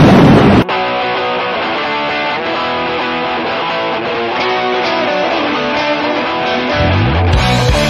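A loud, short burst of noise, then electric guitar playing a riff on its own, with low bass notes coming in near the end.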